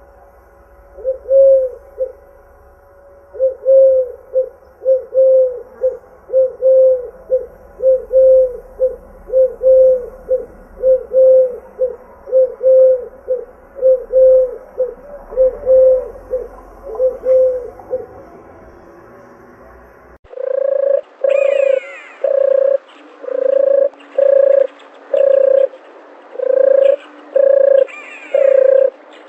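Doves cooing: a long run of short, even coos at about one a second over a low hum. About two-thirds of the way in the sound changes abruptly to louder coos with a few higher gliding calls above them.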